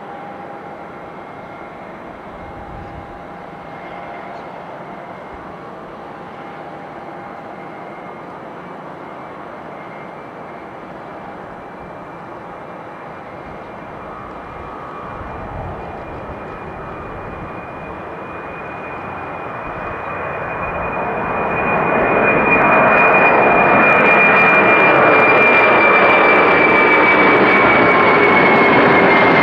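Boeing 747-400 freighter's four jet engines at takeoff power, a steady rushing noise with a high whine. It grows much louder over a few seconds about two-thirds of the way in as the jet rolls toward the listener, then stays loud, the whine dropping slightly in pitch near the end.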